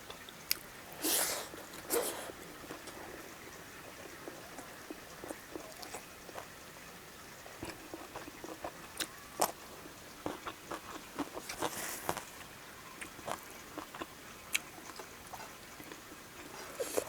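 Close-up mukbang eating sounds: a person chewing and biting food, with scattered small clicks and a few louder wet, noisy bursts about a second, two seconds and twelve seconds in.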